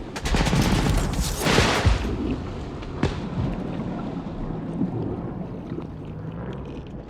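Film battle sound of rapid gunfire and blasts. About two seconds in it turns muffled and dull as the treble is cut away, leaving a low rumble with faint, far-off-sounding shots. This is the sound design for a soldier's shell-shocked daze.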